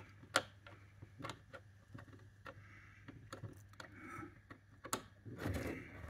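Faint, irregular clicks and taps of small brass rods being handled and slid into the tubes at a model railway track joint, with one sharper click about half a second in, over a faint low hum.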